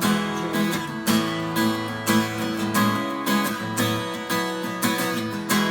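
Instrumental break of a country song, led by strummed acoustic guitar in a steady rhythm, with no vocals.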